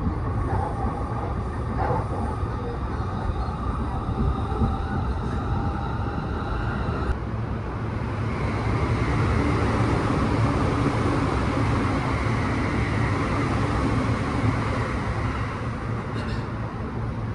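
Electric commuter train running, heard from inside the car: a steady rumble with rail noise, growing somewhat louder about eight seconds in.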